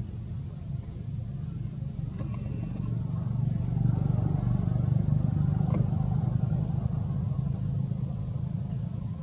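Low engine rumble of a passing motor vehicle, growing louder towards the middle and then easing off.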